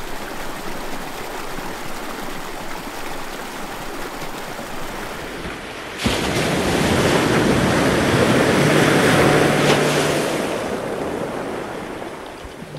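Ocean surf: a steady wash of water, then about halfway through a wave crashes in suddenly, swells for a few seconds and slowly dies away.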